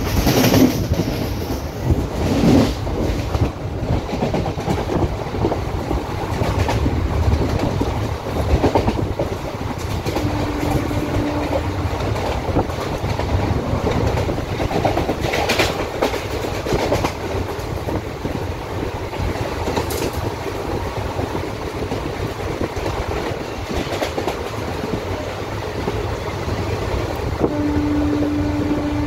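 Train running at speed, heard from on board: a steady rumble and rushing noise with scattered clicks of the wheels over the rails. The train's horn sounds briefly about ten seconds in and again near the end.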